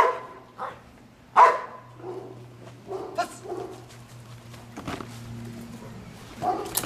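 Trained bodyguard dog barking: two loud barks about a second and a half apart, then several quieter barks over a steady low hum.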